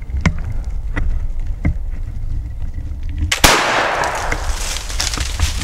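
A single flintlock shot about three and a half seconds in: a sudden loud report followed by a couple of seconds of rushing noise. Before it there are a few faint ticks over a low rumble.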